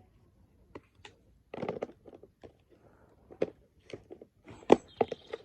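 Irregular handling clicks, knocks and rustles from camp cooking gear, with a sharp knock near the end being the loudest.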